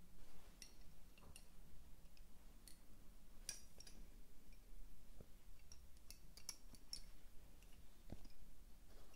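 Wooden Honiton lace bobbins clicking lightly against one another as pairs are crossed and twisted, in faint, irregular clicks.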